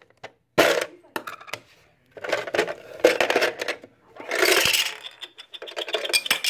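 A plastic lid snapping off a plastic toy canister, then plastic toy Oreo cookie pieces rattling and clattering as they are tipped out onto a table.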